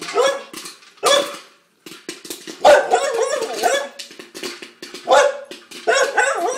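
Soft-coated wheaten terrier barking repeatedly, a string of high, wavering barks with short gaps between them, alarmed by a new popcorn popper.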